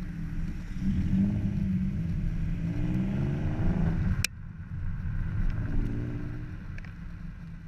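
Audi TT 3.2's VR6 engine revving through a Cobra Sport resonated stainless-steel cat-back exhaust. The pitch climbs, then cuts off abruptly about four seconds in; a second rev rises and fades away toward the end.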